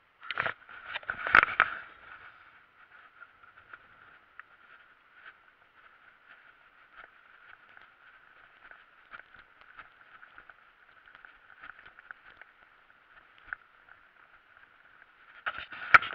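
Mountain bike riding over bumpy grass, heard through its handlebar-mounted camera as a muffled rustle with scattered small clicks and rattles. Louder knocks and rattling come about a second in and again near the end.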